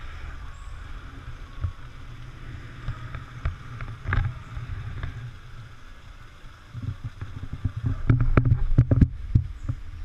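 Steady trickle of running water in a garden pond, under a low rumble. About eight to nine seconds in comes a cluster of clicks and knocks, the loudest part.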